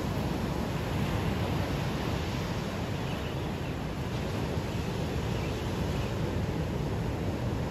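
Steady wash of surf breaking on a beach, with wind across the microphone adding a low rumble.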